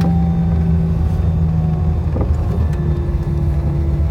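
Airbus A320 jet engines at low power while the airliner taxis after landing, heard inside the cabin as a steady low rumble with a droning hum. The hum drifts slightly lower, stepping down about two seconds in, with a faint click at the same moment.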